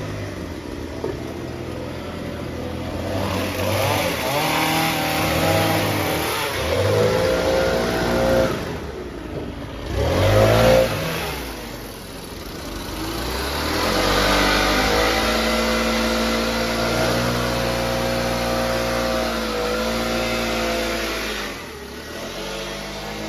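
Lawn mower engine running throughout, its pitch rising and falling as the load changes, loudest about ten seconds in.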